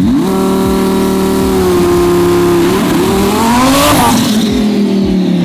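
Twin-turbo Audi R8's V10 held at steady high revs, then let go: the engine note climbs hard with a burst of tyre spin near its peak about four seconds in, and the pitch falls away after it.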